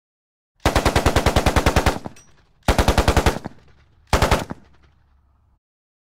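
Automatic machine gun firing in three bursts at about ten rounds a second: a long burst of over a second, a shorter one, then a brief one. Each burst trails off in a reverberant tail.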